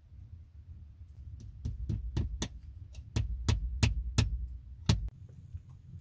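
Sharp taps on a wooden door post as a metal hook latch is fitted: two runs of about four strikes, roughly three a second, then one more near the end, over a low steady rumble.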